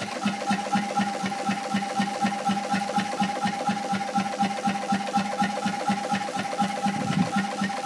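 A Stord hot-bulb two-stroke marine engine (5 hp, around 1935) running slowly and steadily, with even beats at about five a second. It is on its first start and, to its owner, still needs tinkering before it runs nicely.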